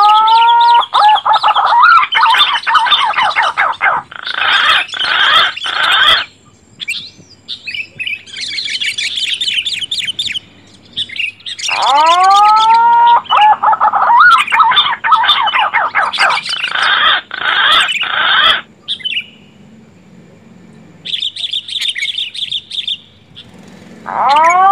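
Looped bird-lure recording of green pigeon (punai) and sooty-headed bulbul (kutilang) calls, played loud. Rising whistled calls open each cycle, followed by rapid dense chirping and a short chattering phrase, and the pattern repeats about every twelve seconds.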